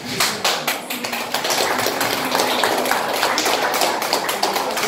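Applause from a classroom of schoolchildren: many hands clapping in a dense, irregular patter that dies away near the end.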